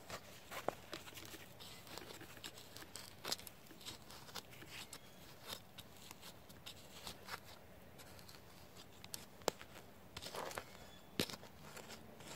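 Hand trowel digging and scraping through loose, dry garden soil: faint irregular scrapes with a few sharper clicks, the sharpest about nine and eleven seconds in.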